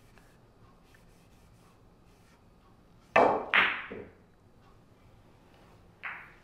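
Pool cue tip striking the cue ball, then a split second later the cue ball clacking into the 3 ball on a cut shot; these two sharp hits are the loudest. A lighter click of a rolling ball follows near the end.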